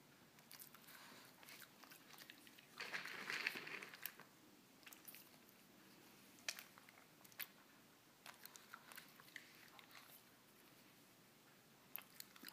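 Shih Tzu crunching and chewing dry kibble: scattered sharp crunches, louder for about a second some three seconds in.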